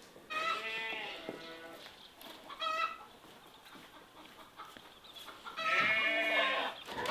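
Sheep bleating three times: a short call just after the start, a brief one near three seconds, and a longer, louder one around six seconds that falls in pitch at its end.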